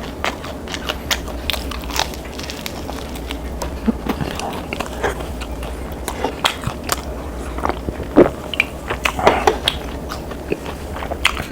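Close-miked eating: irregular crisp crunches and chewing of food, most likely crispy fried chicken, with the loudest bite a little past eight seconds in.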